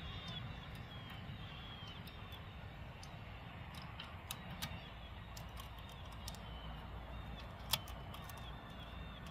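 Faint, scattered metallic clicks of a saw chain's links being worked into the guide bar groove and around the clutch sprocket of a Neo-Tec NH843 chainsaw, with one sharper click about three-quarters of the way through.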